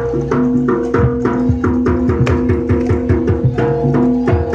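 Live jaranan music: fast hand-drum strokes over held, ringing pitched tones of gamelan-style percussion.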